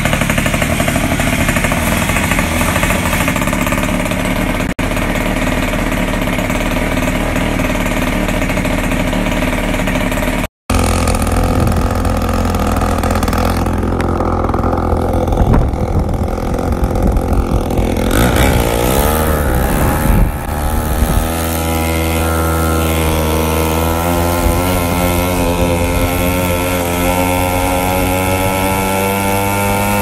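Small two-stroke pocket bike engine running fast and loud, freshly rebuilt with a cleaned carburetor, new fuel lines and new spark plug. It cuts out abruptly about ten seconds in. From about twenty seconds in, its pitch climbs slowly as it pulls the bike along.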